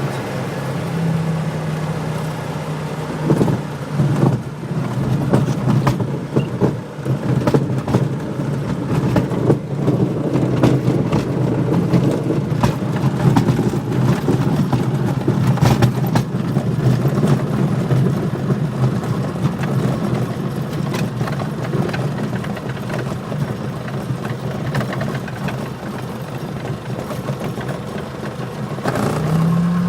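Light aircraft's piston engine running steadily, with scattered crackles over it; near the end the engine note briefly rises in pitch and gets louder.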